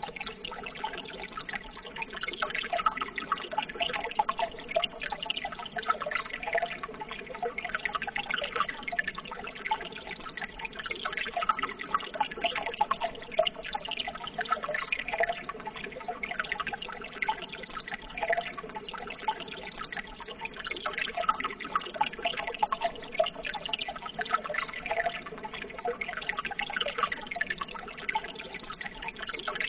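Running water: a steady, continuous trickling and splashing babble, like a small stream, with no pauses.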